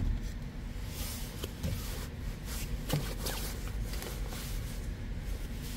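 A low steady hum, with a few faint clicks and rustles scattered through it.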